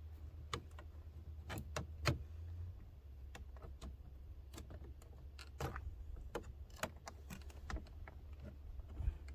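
Scattered light clicks and knocks of plastic interior door trim being pried at and handled, its clips catching and latching back down, over a steady low hum.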